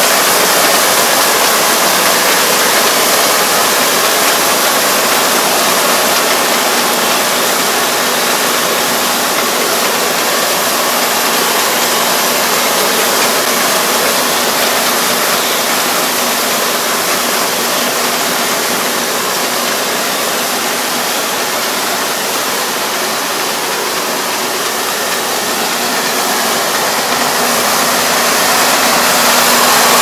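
Combine harvester engine and threshing machinery running steadily while it cuts lodged rice. Slightly quieter in the middle, getting louder again near the end.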